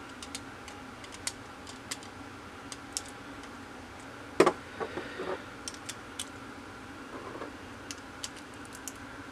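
Scattered light clicks and taps of Beyblade Burst spinning-top parts (plastic layer, metal forge disc, driver) being handled and fitted together by hand, with one sharper click about four and a half seconds in.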